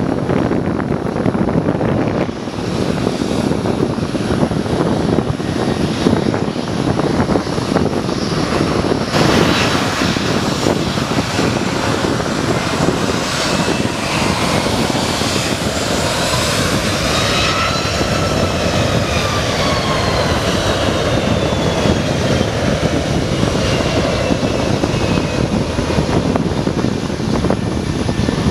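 Southwest Boeing 737's CFM56 jet engines spooling up on the runway: a loud, steady roar that grows fuller about nine seconds in. A high engine whine joins it, rising and then slowly falling in pitch as the jet rolls past and away on its takeoff run.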